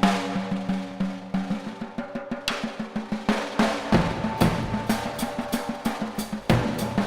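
Drum kit solo: quick strokes on snare and toms with a few heavier hits that include bass drum and cymbal crashes, the drums ringing on in a very large room.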